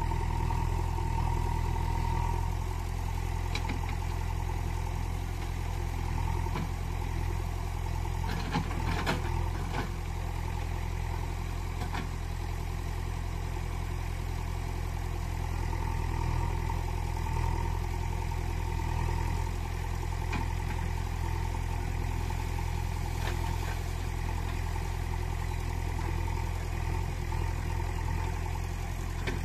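Steady engine idling sound, a low even hum that does not change in pitch or level, with a few light clicks about a third of the way in.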